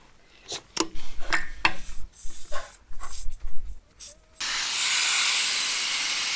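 Clicks and knocks of a valve-core removal tool being fitted to a tire's valve stem. About four seconds in, a loud, steady hiss of air rushing out of the tire as it is aired down with the valve core out.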